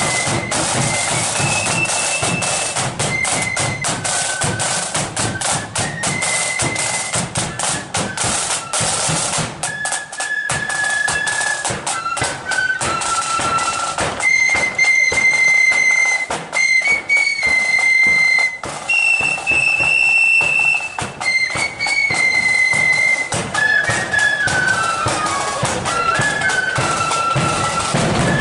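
Marching flute band playing a tune on flutes in unison, with drums beating time underneath.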